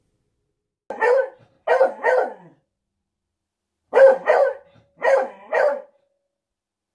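A beagle barking: three barks, then after a short pause four more.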